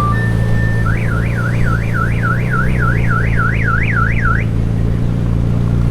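Electronic car-alarm siren: after a couple of short steady beeps, a warbling tone sweeps up and down about three times a second for three and a half seconds, then stops. A steady low hum runs underneath.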